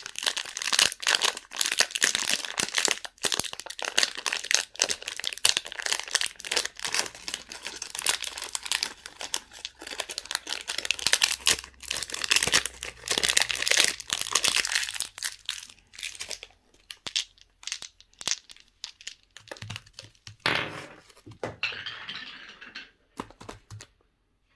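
Candy wrappers crinkling and tearing as they are opened by hand, dense and continuous at first, then thinning to scattered crackles before stopping near the end.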